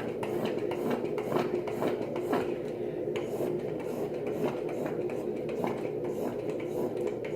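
Foaming soap pump bottle pressed again and again into a bowl, a string of short clicks and squirts, over a steady background hum.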